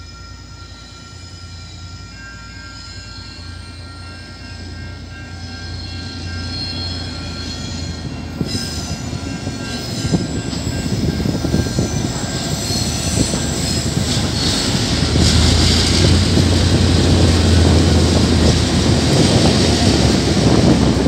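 Diesel-electric freight locomotives approaching and passing close by, their engine throb growing steadily louder, with steady high whining tones over it. The wagons rumble along the rails near the end.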